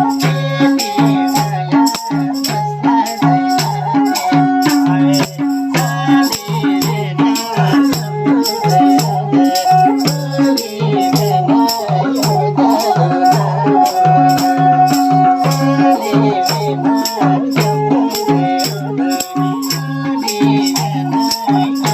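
Nepali folk music: a sarangi melody over a steady madal drum rhythm.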